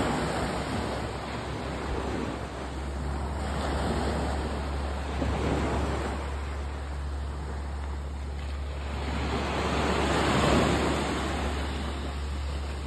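Small waves breaking and washing up a sand-and-pebble beach, the surf swelling and fading every few seconds, loudest about ten seconds in. Under it runs a steady low rumble of wind on the microphone.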